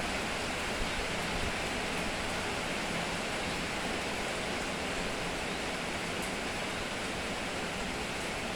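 Steady rain falling, an even hiss of drops with no let-up and a few faint ticks above it.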